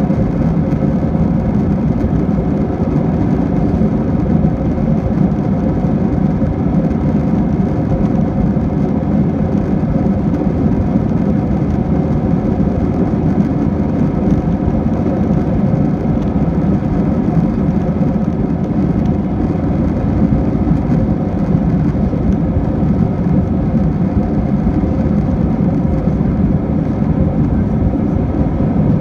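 Airbus A321 jet engines and rushing airflow running steadily at climb power during the climb-out after takeoff, heard inside the cabin as a loud, even drone with a low rumble and a faint steady hum.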